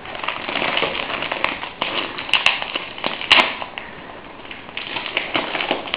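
Gift wrapping paper crinkling and crackling as a parcel is unwrapped by hand, with a few sharper snaps of paper in the middle.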